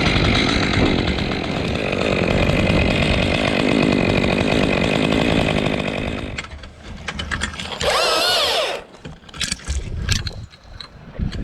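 Chainsaw running and cutting tree branches for about six seconds, then dropping away; a short loud burst with a wavering pitch comes about eight seconds in, followed by scattered clicks and knocks.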